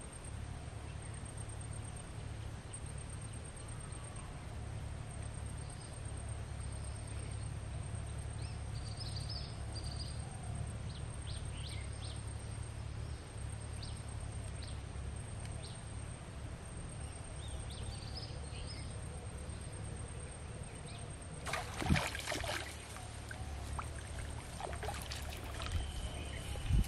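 Outdoor ambience at a forest pond: a steady low rumble with faint high chirps scattered through the middle. About twenty-two seconds in comes a short burst of rustling and knocking, the loudest sound.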